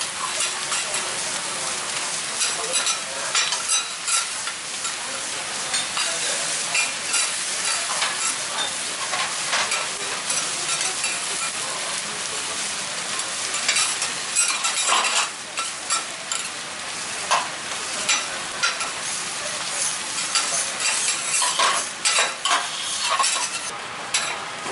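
Okonomiyaki and fried noodles sizzling on a hot steel teppan griddle, with metal spatulas scraping and clacking against the plate again and again.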